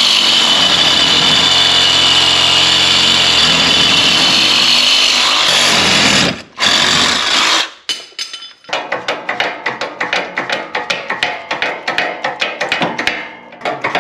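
Cordless reciprocating saw cutting into an old strut mount clamped in a vise, to free its bushing: a steady high whine, running in two stretches with a short break about six seconds in. From about nine seconds, background music with a quick percussive beat.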